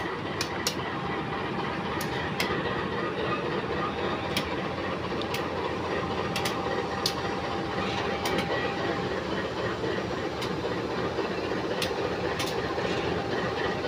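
CC204 diesel-electric locomotive (GE C20EMP) rolling slowly past at shunting speed, its engine running steadily while the wheels click irregularly over rail joints. A faint steady whine carries on until about nine seconds in.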